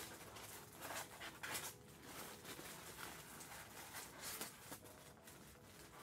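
Plastic wrapping crinkling and rustling in irregular swishes as hands unwrap a resin figure.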